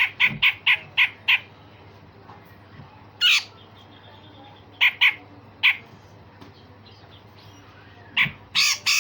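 Cucak jenggot (grey-cheeked bulbul) giving rough, chattering call notes in quick runs: about six short notes in the first second and a half, a single note a little past three seconds, three more around five seconds, and a fast burst near the end.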